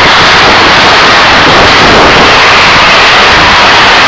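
Passenger train running past close along a station platform: a loud, steady rush of wheel and air noise that overloads the microphone.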